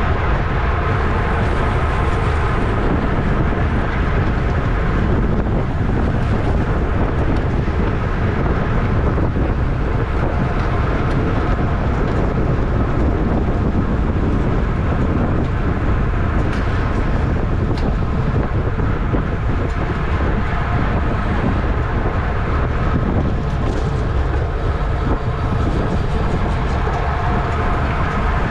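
Steady wind rush over the microphone of a road racing bike's onboard camera at race speed, with the rolling noise of the bike underneath.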